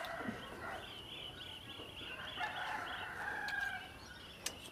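A rooster crowing: one long, wavering crow starting just under a second in and lasting about three seconds. A single sharp knock comes near the end.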